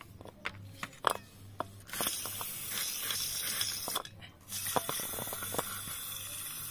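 Aerosol brake cleaner spraying onto a throttle body in two long hissing bursts, each about two seconds, with a short break between them, after a few light clicks of handling.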